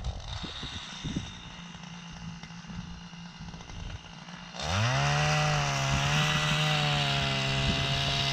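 A small engine: a fainter steady hum at first, then about halfway through a louder engine revs quickly up and holds a high, steady speed.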